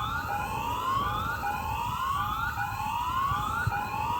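Tsunami warning siren wailing in short rising sweeps, repeated over and over: an alert to evacuate the coast.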